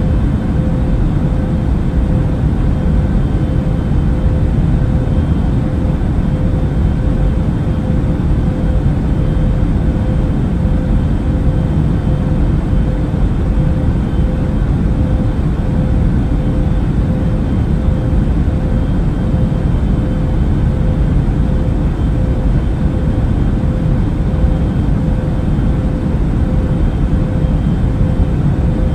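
Steady drone of a passenger airliner in flight, heard from inside the cabin: low, even engine and airflow noise with a faint steady hum on top, unchanging throughout.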